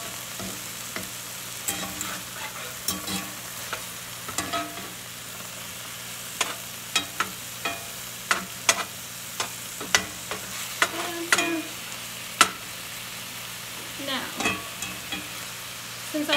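Hamburger patties, onions and mushrooms sizzling steadily in a cast iron skillet, with irregular clicks and scrapes of a slotted spatula pushing the vegetables around the pan. The strongest knock of the spatula on the skillet comes about twelve seconds in.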